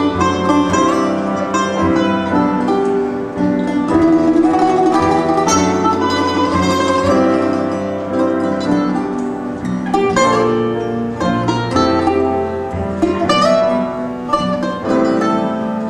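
Acoustic guitar and a second plucked string instrument playing an instrumental passage of a folk song, without singing.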